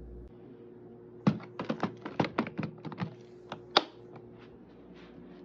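Handling clatter: about a dozen quick clicks and light knocks of hard objects over a couple of seconds, with a sharp knock at the start and another at the end, over a faint steady hum.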